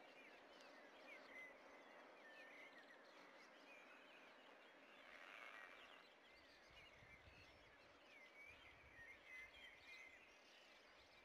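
Near silence: faint chirping of small birds, many short calls, over a faint steady hiss of rain. A faint low rumble joins in the second half.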